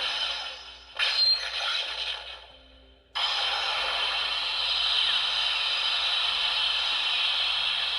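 Mebius Brace toy playing its finishing-move sound effect through its small speaker after being swung: two short bursts, then a long hissing blast that begins about three seconds in and keeps going.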